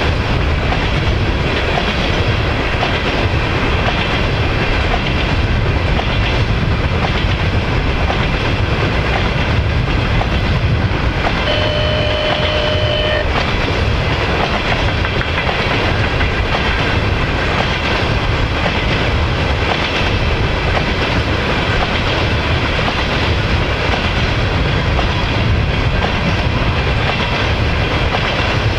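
A train of empty oil tank cars rolling past, a steady rumble with the wheels clicking over the rail joints. A short steady tone sounds for about two seconds around the middle.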